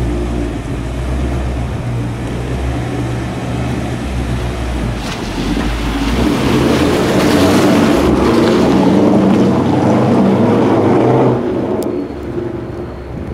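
Skoda Superb's 1.5 TSI four-cylinder turbo petrol engine as the car pulls away and drives past at low speed, growing louder as it comes close about six seconds in and easing off near the end as it moves away. Wind noise on the microphone runs underneath.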